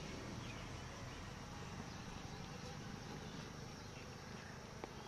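Faint outdoor background noise with insects chirping.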